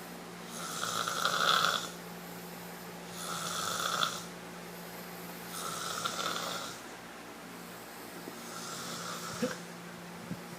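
Snoring: four long snores about two and a half seconds apart, the first the loudest and the last the faintest.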